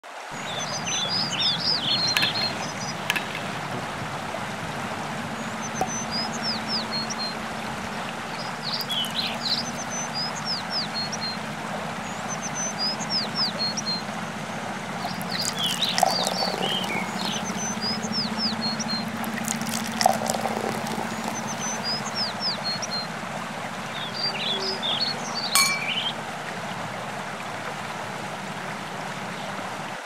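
Birds chirping in short repeated phrases over a steady rush of flowing water, with a few sharp clicks and splashes of liquid being poured.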